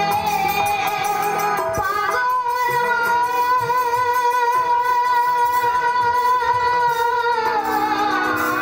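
A girl singing into a microphone over PA loudspeakers, holding one long wavering note from about two seconds in until near the end, with drum accompaniment.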